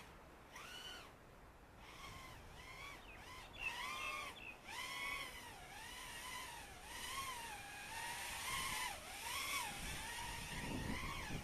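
Small FPV racing quadcopter's motors and propellers whining in flight, the pitch swinging up and down about once a second as the throttle changes, with rumbling noise coming in near the end.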